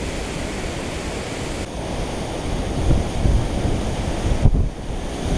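Water rushing through a dam's outflow, a steady loud hiss of moving water, with wind buffeting the microphone in uneven gusts from about halfway through.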